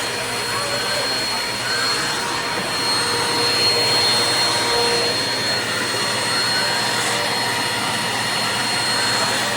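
Eureka PowerSpeed NEU181A bagless upright vacuum cleaner running steadily, its motor noise carrying a thin high whine.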